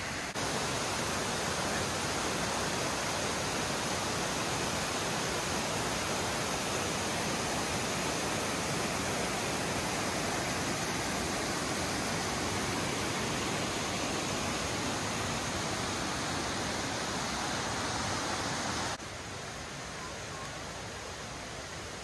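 A rocky mountain creek rushing and cascading white over boulders: a steady, full rush of water. Near the end it drops abruptly to a softer, more distant rush.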